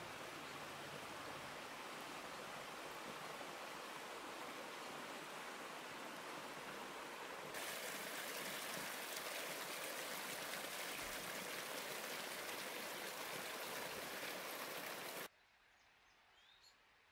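Shallow river water rushing over stones in rapids. About seven seconds in, it switches to a louder, hissier splashing of a small cascade falling over rocks. Near the end the water sound cuts off to a quiet background with a short bird chirp.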